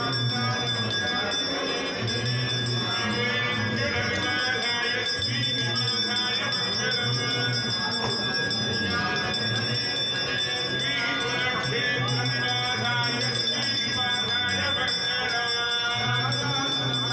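Devotional music with singing voices over a low, recurring throb.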